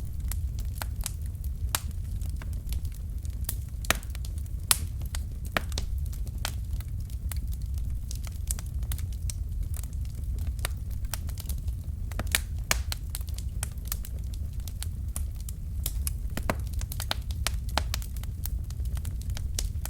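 Wood fire burning in a fireplace: a steady low rumble of flames with irregular crackles and sharp pops from the burning logs, a few louder pops now and then.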